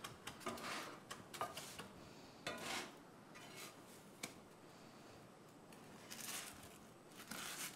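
Faint kitchen handling sounds: a scatter of light clinks and knocks of utensils and dishes, with a few brief rustles.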